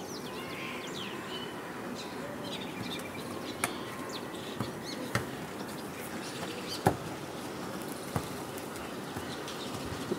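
Outdoor background with birds chirping in the first second or so, and four sharp knocks spread through the rest, the loudest about seven seconds in.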